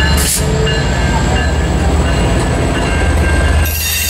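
Diesel-hauled passenger train rolling past close by: the locomotive's low engine rumble gives way to the steady roar of the coaches' wheels on the rails, with steady high tones over it. A brief hiss comes just after the start, and a louder one begins near the end.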